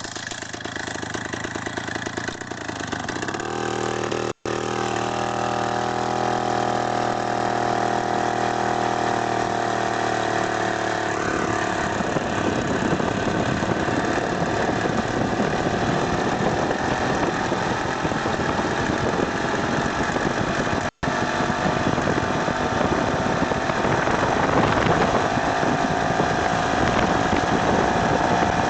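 Single-cylinder two-stroke Ural chainsaw engine driving a motorized wheelchair, running at speed with a steady rushing noise over it from about a third of the way in; its pitch climbs slowly near the end. The sound drops out briefly twice.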